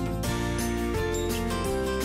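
Background music with sustained melodic notes over a steady beat.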